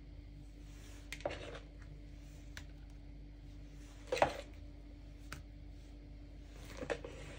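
A spatula scooping stiff meringue from a bowl and dropping it onto a cake, making three short soft knocks and scrapes, the loudest about four seconds in, over a steady low hum.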